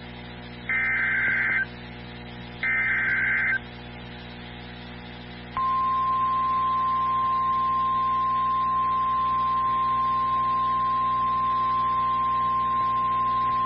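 NOAA Weather Radio Emergency Alert System activation: the last two of the three SAME header data bursts, each about a second long and a second apart, then after a short pause the steady 1050 Hz warning alarm tone, here heralding a severe thunderstorm warning. A low radio hum runs underneath.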